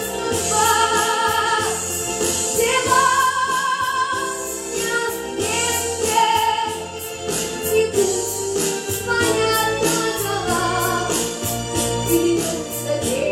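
A singer performing a song with vibrato on held notes, over a band accompaniment with a steady beat.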